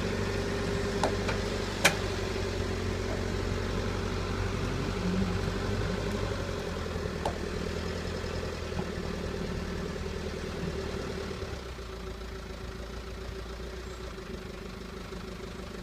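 Backhoe's diesel engine running steadily, with two sharp knocks about one and two seconds in; the engine sound eases lower over the last few seconds.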